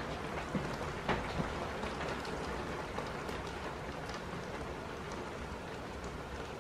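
Heavy rain falling steadily, heard from indoors through a window, with scattered sharp ticks of individual drops striking.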